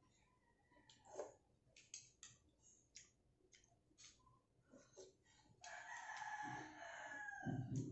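Spoon and fork eating noodles from a bowl, a run of short light clicks and mouth sounds, then a drawn-out animal call lasting about two seconds near the end.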